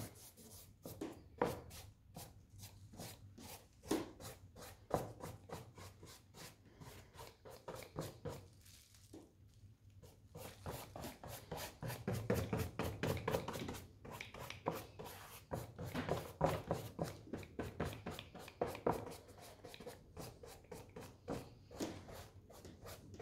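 Quick strokes and dabs of a large paintbrush loaded with runny acrylic on paper: a fast, irregular run of faint ticks and scrapes, a little louder for a couple of seconds about halfway through.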